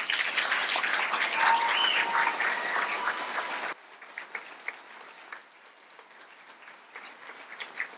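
Audience applauding a finished speech. The clapping is loud for about three and a half seconds, then drops abruptly to a much quieter level, where scattered clapping goes on.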